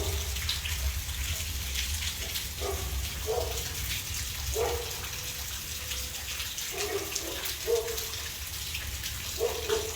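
Heavy rain pouring down steadily, with fine ticks of drops striking. A few short, faint voice-like sounds come and go.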